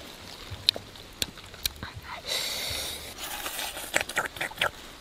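Eating sounds from roasted chicken being torn and chewed: scattered small clicks and crackles, clustering near the end, with a brief burst of hiss just before halfway.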